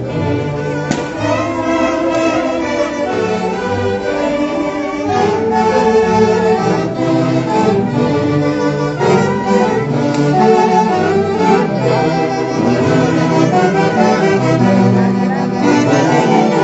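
Loud band music playing a dance tune for the zapateo, several melody instruments over a steady bass line.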